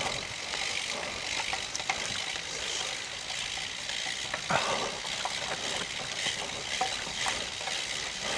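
Bicycle tyres rolling over wet, loose gravel in pouring rain: a steady hiss with scattered clicks and crunches of stones, one louder crunch about halfway through.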